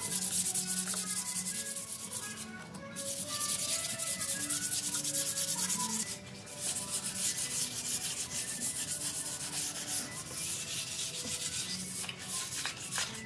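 Hand sanding: sandpaper rubbed back and forth over a solid wood slab tabletop, a continuous scratchy hiss that breaks off briefly twice, about two and a half and six seconds in.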